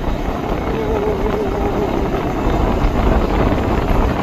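Steady rush of wind buffeting the microphone on a moving motorcycle, with the bike's running noise underneath.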